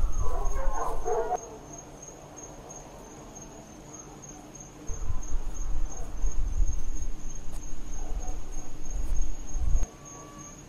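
Crickets chirping in a steady, even high pulse, under a low rumble that is loud at the start and again from about five to ten seconds in.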